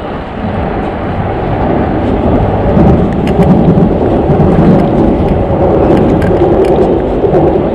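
Wind buffeting the microphone of a camera on a moving bicycle: a loud low rumble that builds about half a second in and stays strong, with a few faint clicks and rattles.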